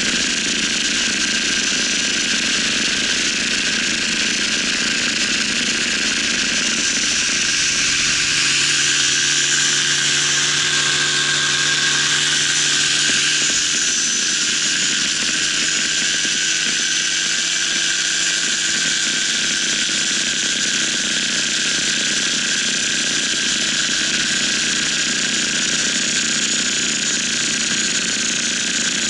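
Tandem paramotor's engine and caged propeller running steadily in flight, heard close up from the harness. The engine note shifts for a few seconds about a quarter of the way in, then settles again.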